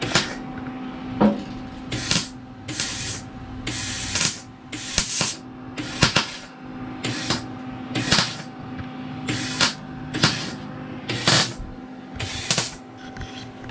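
MIG welder laying short tack or stitch welds on car sheet metal, crackling in a dozen or so brief bursts about a second apart, with a steady electrical hum underneath.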